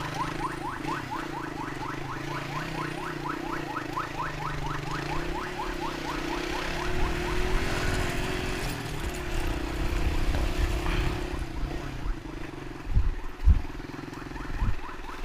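Electronic siren in a fast yelp, about four or five rising sweeps a second, fading out about six seconds in, over a steadily running engine in stop-and-go traffic. A few low thumps come near the end.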